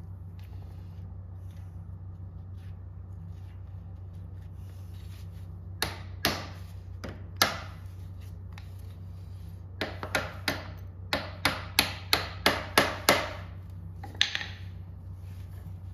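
Wooden mallet striking an Austin 7's front leaf spring and axle, knocking the spring into place. There are three spaced blows, then a quick run of about a dozen at three or four a second, and a last single knock.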